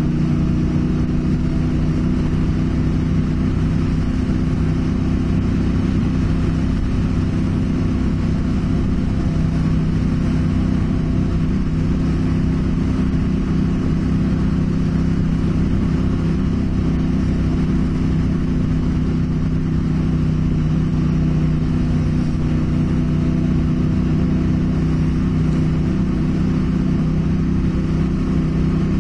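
Motorcycle engine running at a steady cruise on a dirt track, holding an even pitch throughout, with a constant rushing noise over it.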